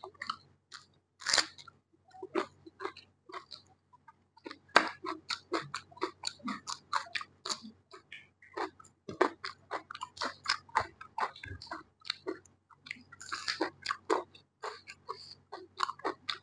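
A person chewing mouthfuls of rice and curry close to a clip-on microphone: a rapid, irregular run of short mouth clicks and smacks, easing briefly about four seconds in.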